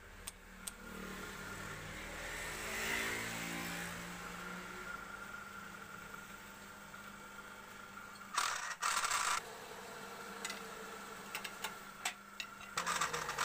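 Wood lathe motor spinning up, its hum rising in pitch over the first few seconds, then running steadily with a square wooden blank turning between centres. About two thirds of the way in there is a loud, short scraping burst, and near the end a run of sharp clicks and clatter as a tool meets the spinning wood.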